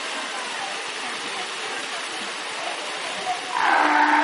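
Fur seal calling: one loud, held call starts about three and a half seconds in, over a steady wash of noise.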